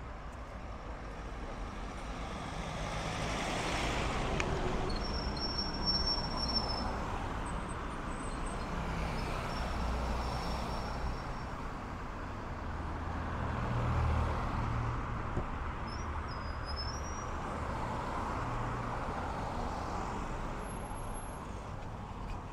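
Road traffic on a town street: cars driving past, with engine hum and tyre noise that swell twice, around 4 s and again around 14 s in.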